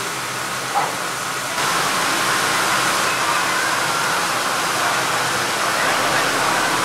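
Steam hissing steadily from a standing DB class 41 steam locomotive, growing louder and brighter about a second and a half in.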